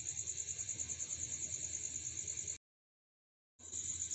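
A steady high-pitched pulsing trill with a faint low hum beneath it. All sound drops out completely for about a second past the middle, then the trill returns.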